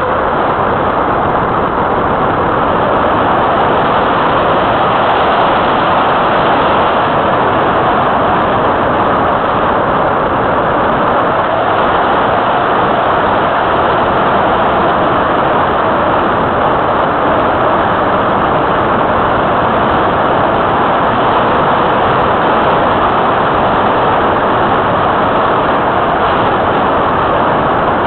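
Steady, loud rush of airflow over a keychain camera mounted on the wing of a radio-controlled model glider in flight, with no breaks or sudden sounds.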